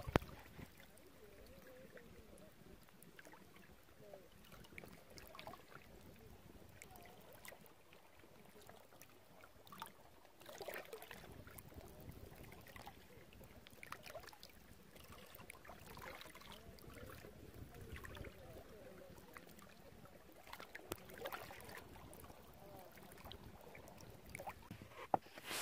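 Faint sloshing and trickling of shallow creek water, with a few soft splashes.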